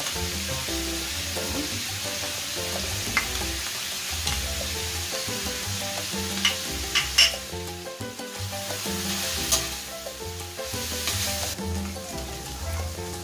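Ground meat, hotdog slices and mushrooms sizzling in an aluminium wok, with a spatula clicking and scraping against the pan several times around the middle as the mix is stirred. Background music with a steady bass runs underneath.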